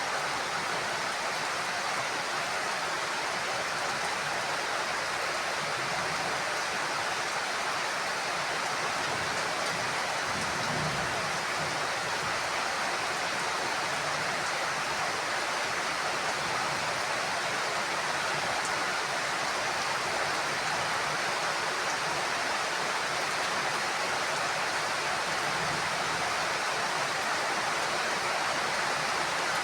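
Heavy rain falling on a roof, a dense steady hiss with no let-up. A faint low rumble, likely distant thunder, comes about ten seconds in and again weakly later.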